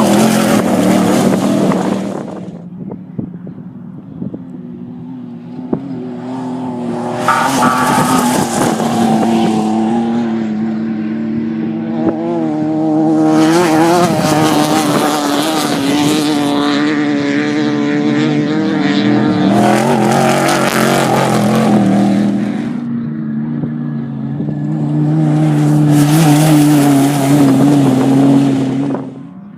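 Off-road race vehicles passing one after another on a dirt course, engines revving hard, in about five loud passes. An engine note carries on between the passes, and the sound cuts off abruptly at the end.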